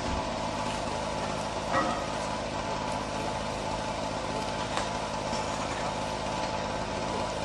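A steady engine-like hum, as of a vehicle idling, with a short knock about two seconds in and a fainter click near five seconds.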